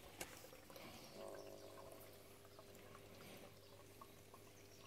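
Faint trickle of water running through a recirculating hydroponics system, over a low steady hum.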